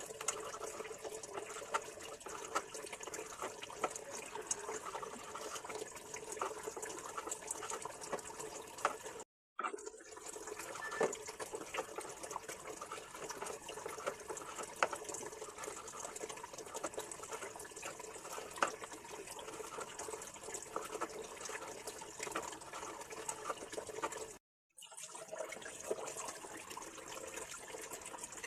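Water running and splashing, as from a tap into a sink, with many small splashes and clicks. The sound cuts out abruptly for a moment about nine seconds in and again about twenty-four seconds in.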